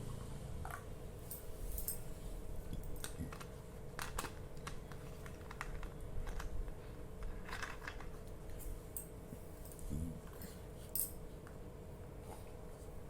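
Scattered light clicks and taps of small objects being handled, a few every second, over a faint steady hum.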